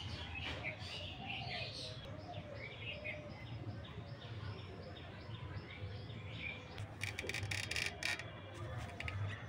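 A small bird chirping in a quick repeated series over a steady low hum. About seven seconds in there is a short burst of rustling and clicking.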